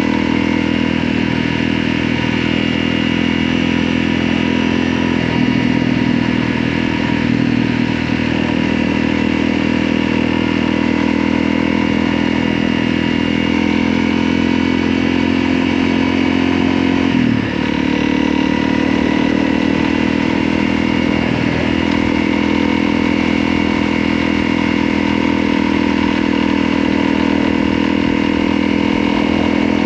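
Motorcycle engine running steadily under way, with a brief dip in the engine note about halfway through.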